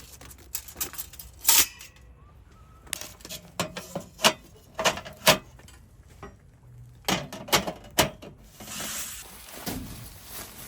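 A series of light, irregular knocks and clinks from small hard objects being handled, a few ringing briefly.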